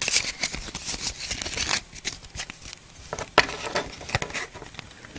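Pokémon trading cards handled by hand, with soft rustling and sliding and scattered light ticks of card edges. The noise is busiest at the start, and there is one sharper tick about three and a half seconds in.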